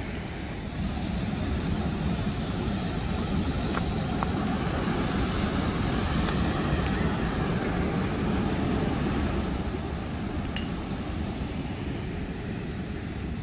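Steady rushing of river water spilling over a low-head dam, with a low, fluttering rumble of wind on the microphone; it grows louder about a second in. A few faint clicks sound over it.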